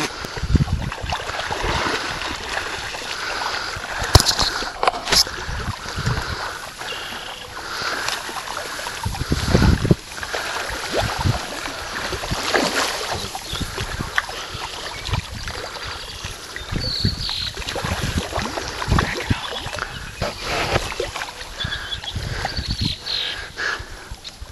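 Irregular splashing and sloshing of shallow floodwater as people wade through a flooded grassy field.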